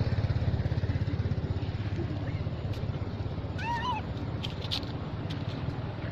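A small engine running steadily with a fast, even pulse, and a brief high squealing animal call a little past halfway, followed by a few faint clicks.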